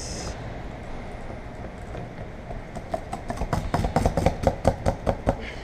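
A rapid run of sharp clicks or knocks, about six a second, for a couple of seconds starting about three seconds in, over a steady low hum.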